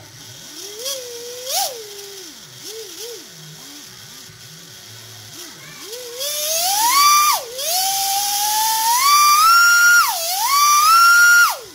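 RC car electric motor spinning unloaded, driven by a 120A ESC fed through a capacitor power booster. Its whine rises and falls with short throttle blips. From about halfway it climbs in steps to a loud high whine, dips twice, and drops away near the end.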